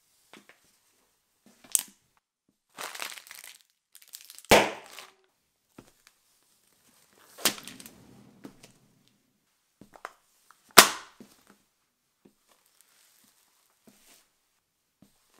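A sneaker sole stepping down on and crushing small soft and crunchy objects one after another, among them gel water beads and a foam piece: squishes, crunches and squelches, with four sharp pops or cracks, the loudest about four and a half and eleven seconds in.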